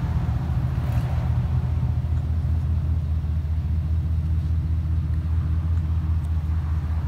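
Lifted 2007 GMC Sierra 2500 HD pickup's engine idling, a steady low rumble.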